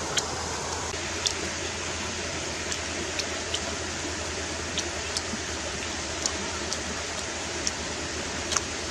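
Close-up chewing and lip smacking while eating cooked shrimp: about a dozen short sharp mouth clicks at irregular intervals over a steady hiss.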